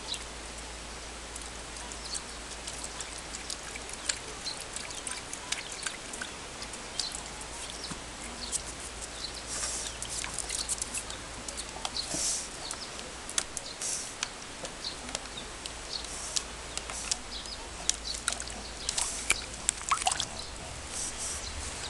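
A small dog stepping into and settling in a shallow plastic tub of water: scattered splashes and sloshing, with a few louder splashes about halfway through.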